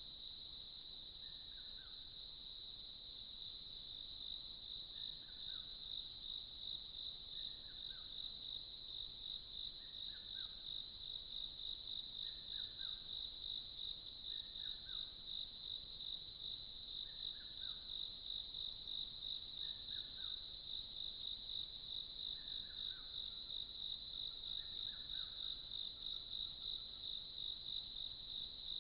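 High-pitched insect chorus in tropical forest, a steady shrill drone that takes on a pulsing beat of a few pulses a second a few seconds in. A short call falling in pitch repeats about every two seconds behind it.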